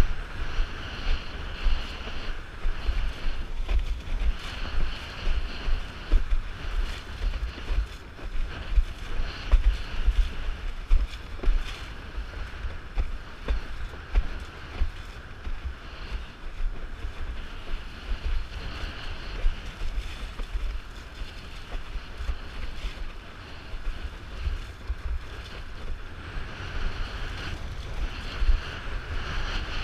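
Wind buffeting the microphone in constant gusty rumbles over the hiss and splash of water rushing past a Starboard 94 windsurf board sailing through chop.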